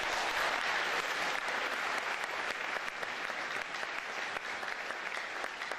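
Audience applauding, a steady clatter of many hands clapping that eases slightly toward the end.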